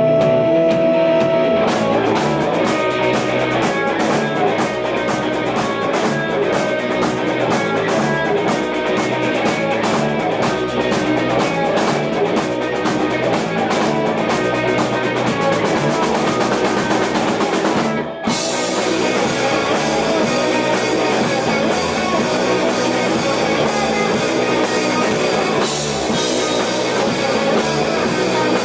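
Rock band playing live, instrumental: electric guitar, with the drum kit coming in about two seconds in and driving a steady beat with ticking cymbals. A little past the middle the band stops dead for an instant, then comes back in with crashing cymbals.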